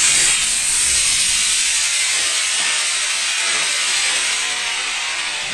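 Hobby model rocket's D motor firing at liftoff: a loud, even rushing hiss that slowly fades as the rocket climbs away.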